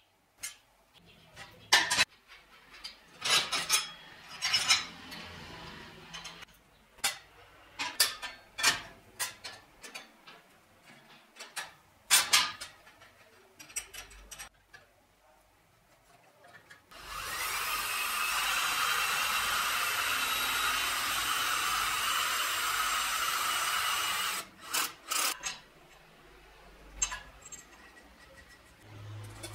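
Sharp metallic clicks and knocks as metal parts are handled, then an angle grinder spins up and runs steadily for about seven seconds before stopping abruptly, followed by a few more knocks.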